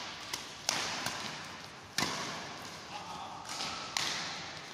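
Badminton rackets striking the shuttlecock in a doubles rally: three sharp hits about one and a half to two seconds apart, each ringing on in the echo of a large sports hall.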